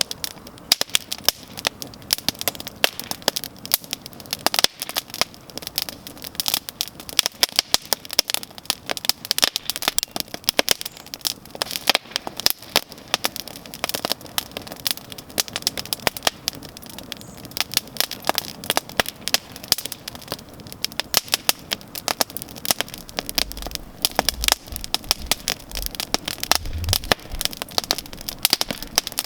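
Outdoor wood campfire crackling, with dense, irregular pops and snaps over a steady hiss.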